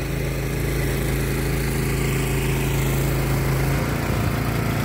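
Small gasoline engine running steadily, its note changing about four seconds in.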